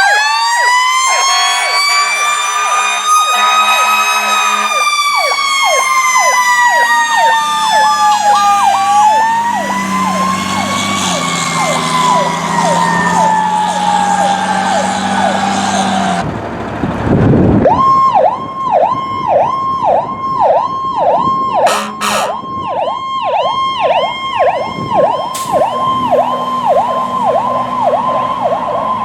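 Emergency-vehicle electronic sirens sounding the Powercall tone. For the first half, a slow rising and falling wail runs with a fast warble over it. After a change about 17 seconds in, a rapid warble repeats at a steady pitch about two and a half times a second.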